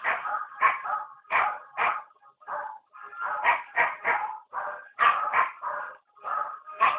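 Dogs barking and yipping in a quick run of short barks, about two a second, with a couple of brief pauses.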